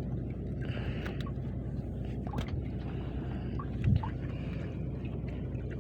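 Small boat's engine running steadily with a low drone, with one short knock about four seconds in.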